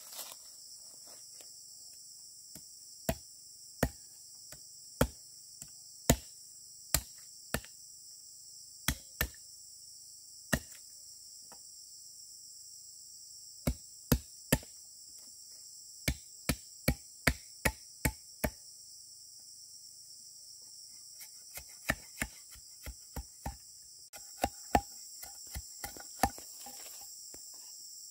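Insects chirring steadily, with sharp knocks of a tool striking something in three runs: about one a second at first, then quicker, and a last run near the end with a slight ring to it.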